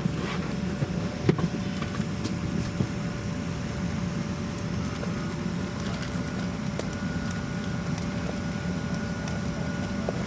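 Steady cabin noise aboard a Boeing 737-400: a low hum with a faint steady tone, with a few light clicks and knocks about one to three seconds in.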